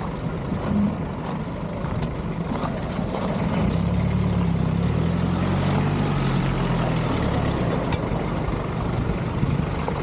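A heavy engine running close by, louder from about three and a half seconds in and fading after about eight seconds, over steady outdoor background noise with a few scattered clicks early on.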